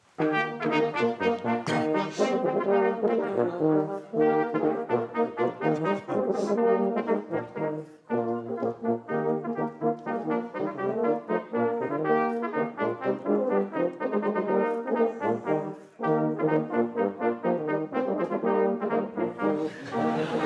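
A brass band playing, with cornets, tenor horns, euphoniums and a trombone sounding full chords in phrases, with short breaks between phrases about four, eight and sixteen seconds in.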